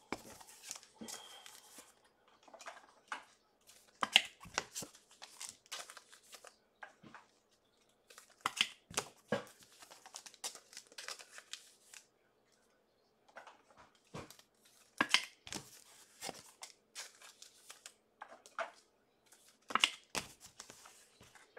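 Trading card packaging and cards being handled: scattered crinkling and tearing of wrapper and packaging, in short bursts with quiet gaps between.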